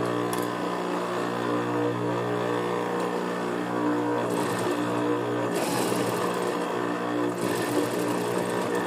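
Juki industrial sewing machine: its motor hums steadily, then it stitches through suede fabric in short runs starting about four seconds in.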